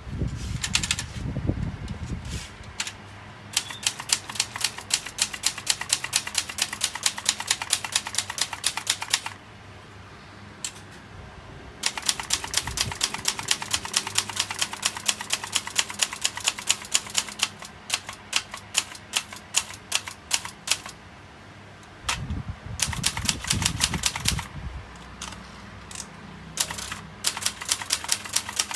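Vintage Brother Deluxe manual typewriter being typed on: fast runs of sharp key strikes in several bursts with short pauses between them, and a low rumbling sweep of the mechanism near the start and again about two-thirds through.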